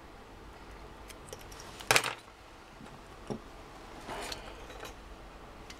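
Scissors snipping a piece of heat-shrink tubing: one sharp, loud snip about two seconds in, followed by a few lighter clicks and a brief rustle of small parts being handled.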